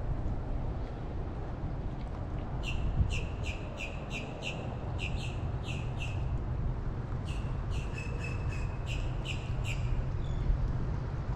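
A bird calling in two quick runs of short, high chirps, about three a second, each chirp dropping slightly in pitch, with a brief pause between the runs.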